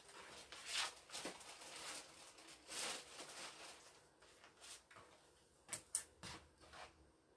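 Faint rustling of cellophane gift wrap and light handling noises as items are moved on a table, with a few short clicks, two sharper ones about six seconds in.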